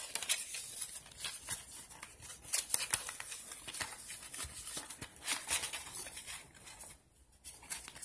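Cardboard perfume box being opened by hand: its flaps and sides scrape and rustle in a string of short, irregular scratches, with a brief lull near the end.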